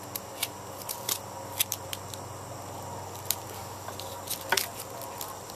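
Irregular crinkles and crackles of a foil balloon being handled while duct tape is wrapped around its neck.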